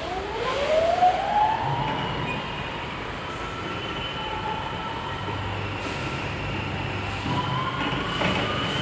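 Electric drive motor of an AGV stacker forklift whining: the pitch rises over the first second or so as it pulls away, then holds as a steady whine over a low hum.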